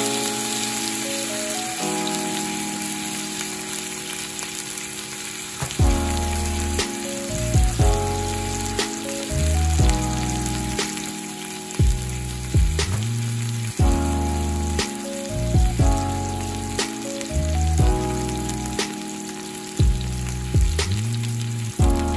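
Beef chunks sizzling as they sear in hot oil in a pot, with background music playing over it; the music's bass comes in about six seconds in.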